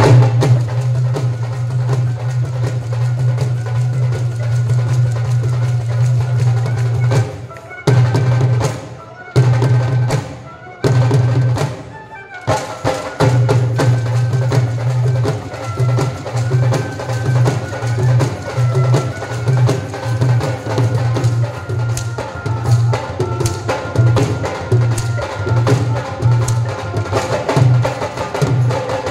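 Punjabi folk orchestra playing: flutes carry the melody over dhol and dholak drumming. The ensemble stops short several times around the middle, then the drums return in a steady pulsing beat.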